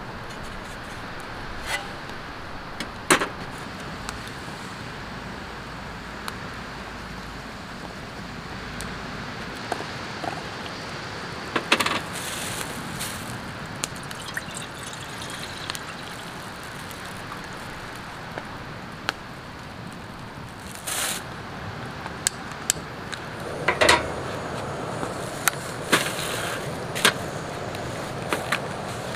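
Camp-cooking handling sounds: scattered clinks and knocks of small metal cookware and lids set down on a metal camp table, over a steady background hiss.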